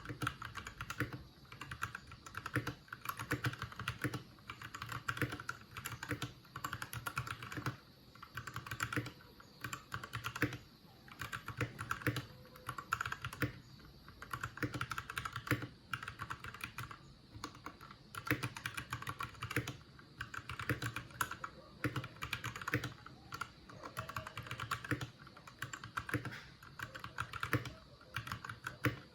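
Typing on a Royal Kludge RK61 60% mechanical keyboard: quick runs of key clicks, broken by short pauses.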